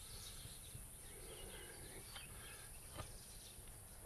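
Quiet outdoor background: a steady high hiss with a few faint chirps and two soft clicks about two and three seconds in.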